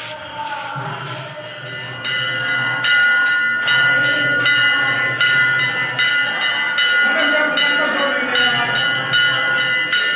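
Temple bell rung over and over, its ringing sustained between strikes, growing louder about two seconds in, with voices chanting behind it.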